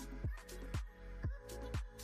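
Background music with a steady beat about twice a second under held chords.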